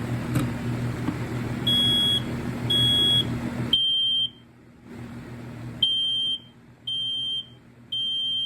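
A newer FireX ADC smoke alarm's piezo sounder being tested: high-pitched half-second beeps in the three-beep fire pattern, three beeps, a pause of about a second and a half, then three more.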